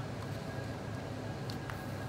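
Steady low background hum with two faint small clicks about one and a half seconds in, as a spray gun is handled just before spraying.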